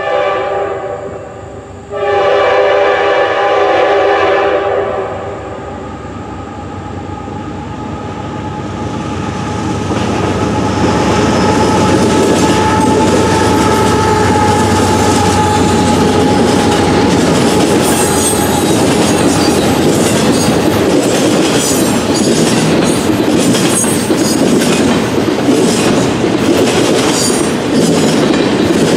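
Diesel locomotive air horn sounding two blasts, a short one and then a longer one of about three seconds. The train then rolls past close by, its rumble and wheel clatter building to a loud, steady din.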